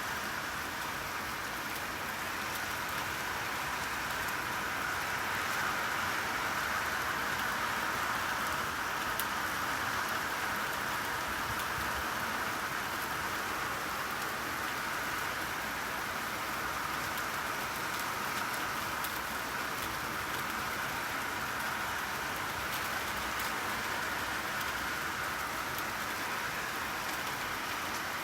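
Steady rainfall, an even hiss of drops with faint scattered taps.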